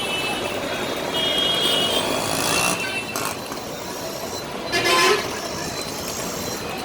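Bus horns sounding over steady road traffic noise: a thin, high horn tone held from about one second in to nearly three seconds, then a short, louder honk about five seconds in.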